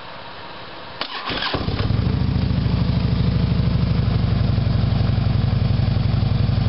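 Harley-Davidson motorcycle's V-twin engine cranked by its starter about a second in, catching within half a second, then idling steadily with an even low pulse.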